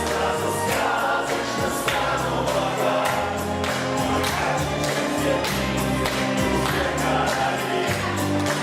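Music with several voices singing together, choir-like, over sustained bass notes and a steady beat.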